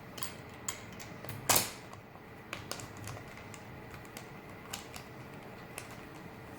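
Scattered small clicks and taps of a screwdriver and metal bolts as the lock's mounting bolts are screwed through into the door, with one louder knock about one and a half seconds in.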